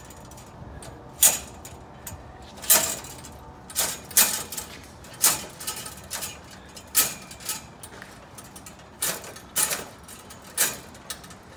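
Chain-link fence wire being twisted and unthreaded out of the woven mesh: a dozen or so short, sharp rattling scrapes, roughly one a second, as the loose zig-zag wire is turned through the neighbouring links.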